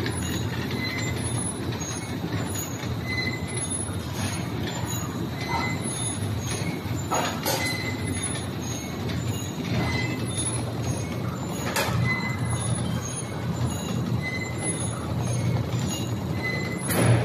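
Filter paper pleating machine running steadily: a continuous low mechanical hum with a short high tone repeating about once a second and a few sharp clicks.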